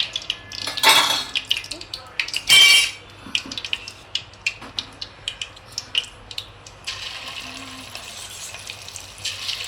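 Chicken pieces coated in flour and egg batter deep-frying in hot oil on medium flame: a run of crackling pops over a sizzle that settles into a steady hiss about seven seconds in. Two louder scrapes of a utensil working in the pan come about one and two and a half seconds in.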